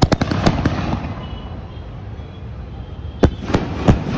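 Cock Brand Coronet aerial shells, about 2-inch, fired from a stand: a rushing hiss with a quick run of sharp cracks at lift-off, then, a little after three seconds in, three loud bangs about a third of a second apart as the shells burst.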